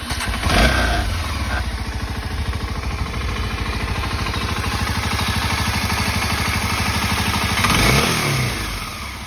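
Kawasaki Ninja 250 SL's single-cylinder engine starting up and idling, with one brief rev about eight seconds in.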